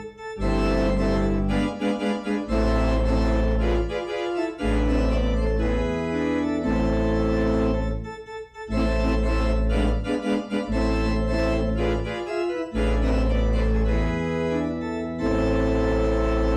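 Church organ playing the postlude: sustained full chords over deep bass notes, moving to a new chord every second or two with a few brief breaks between phrases.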